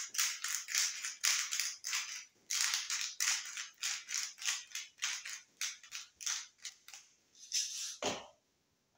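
Rhythmic crunchy scraping strokes of hand food preparation, about two or three a second, with a dull thud near the end.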